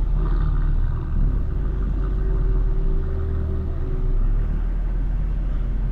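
Cars creeping along in slow town traffic: a steady low rumble of engines and road noise.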